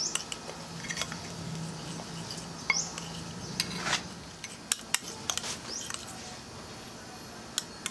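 Metal fork beating egg batter in a china bowl, clinking and scraping against the bowl at irregular intervals.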